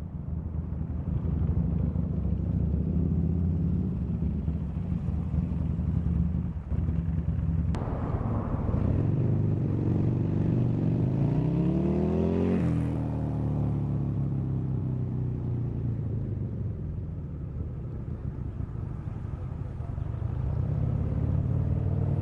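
Buell XB motorcycle's V-twin engine running through a Dean Adams RT-XB-1 aftermarket exhaust. It holds steady, then about a third of the way in it speeds up over about four seconds, drops back suddenly, and starts to rise again near the end.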